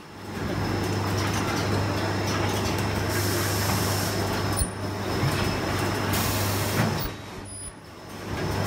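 Steady running noise of an automated film-cutting machine: a constant hiss with a low hum underneath, briefly dropping away near the start, about halfway through and near the end.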